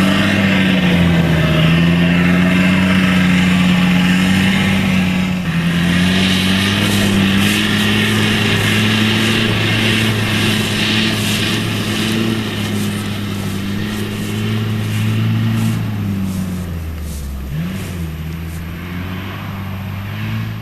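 A motor vehicle's engine running under load, its pitch wavering slightly, with a brief drop and recovery in pitch near the end.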